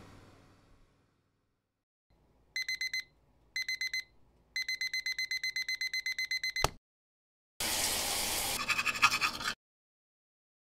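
Digital alarm clock beeping, about eight quick beeps a second: two short runs, then a longer steady run that a sharp click cuts off. About a second later comes a rough, noisy sound lasting about two seconds.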